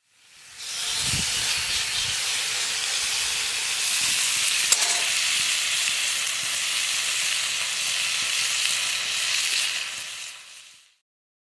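A wood fire hissing and sizzling steadily. The sound fades in over the first second and fades out near the end, with a few low thumps about a second in and a single sharp click about five seconds in.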